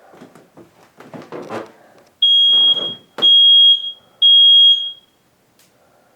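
Smoke alarm sounding three loud, steady high-pitched beeps about a second apart, then pausing, in the repeating three-beep pattern. It has been set off by smoke from a fireplace lit with the flue closed.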